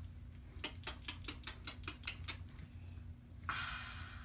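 A quick run of about ten light clicks, roughly five a second, then a short breathy hiss near the end.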